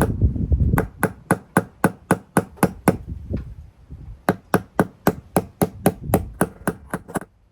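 Hammer blows driving a new rear drum bearing into the tub of a Bosch Exxcel washing machine, struck through the old bearing laid on top as a drift. Rapid, even strikes about four a second, with a short lull about three seconds in; the strikes stop about seven seconds in.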